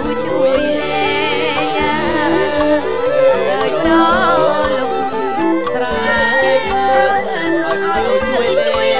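Khmer traditional-style song: voices singing a wavering melody over instruments, with a steady drum beat underneath.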